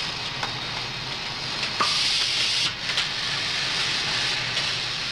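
Stereotype plate-casting machine running with a steady hiss and several sharp clicks. A louder burst of hiss comes about two seconds in and lasts under a second.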